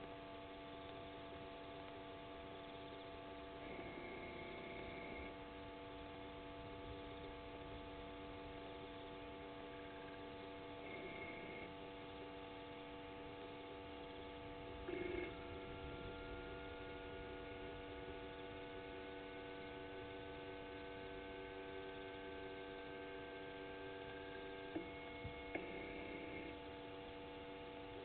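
Steady electrical hum made of several constant tones. Short brief sounds come about four, eleven, fifteen and twenty-six seconds in, and a faint tone rises slowly through the second half.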